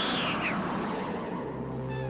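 The end of a cartoon cat's drawn-out yowl, then a rushing noise, and about one and a half seconds in a held brass chord of music begins and sustains.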